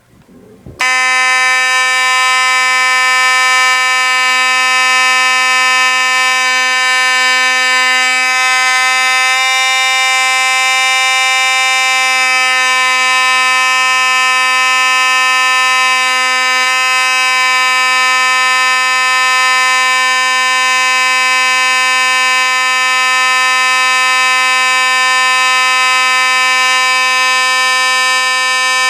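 Simplex 4903-9101 fire alarm's mechanical horn switching on about a second in and sounding one continuous, loud, steady buzzing tone without pauses. The horn is working properly, its coil freshly cleared of the dust that had stopped it sounding.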